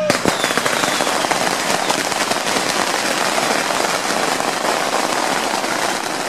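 Strings of firecrackers going off in a dense, rapid crackle of countless small bangs. It starts abruptly and keeps up without a break.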